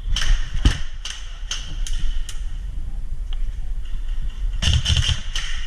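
A series of sharp clicks or knocks, about two or three a second for the first two and a half seconds, then a quick cluster of them near the end.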